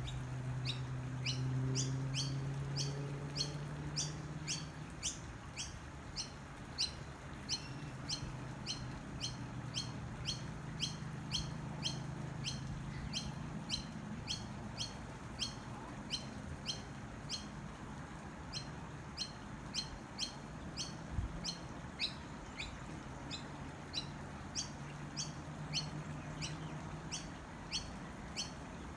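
A bird's short high chirp repeated steadily, about twice a second, over a low steady hum that is strongest in the first few seconds.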